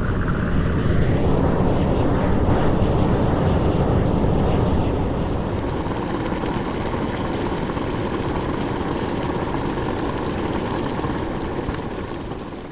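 Geothermal steam and boiling water venting with a steady, rough roar, mostly low in pitch. It swells about a second in, eases slightly after a few seconds, and falls away near the end.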